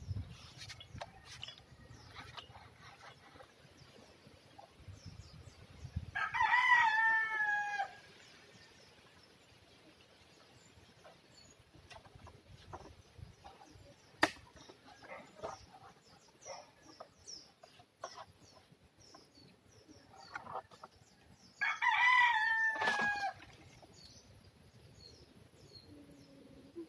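Rooster crowing twice, about fifteen seconds apart, each crow lasting about a second and a half and dropping in pitch at the end. Between the crows there are faint scattered rustles and one sharp click about halfway through.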